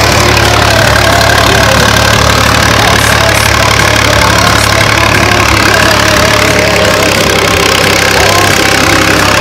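Farm tractor's diesel engine running steadily under load while plowing, heard loud and close from the driver's seat beside the exhaust stack.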